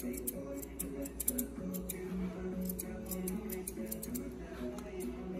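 Grooming scissors snipping dog hair in quick irregular runs of several snips, trimming the line around a small terrier's ear.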